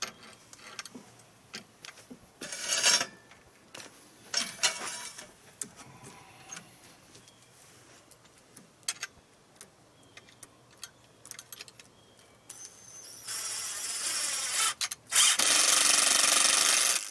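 Cordless drill driving screws: two short bursts a few seconds in, then a longer run near the end whose whine rises in pitch before the motor holds steady and loud for about two seconds.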